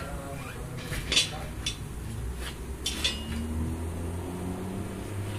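Steel tyre irons clinking and scraping against a tractor wheel's steel rim as the tyre bead is levered on, with a handful of sharp metallic clinks in the first three seconds over a low steady hum.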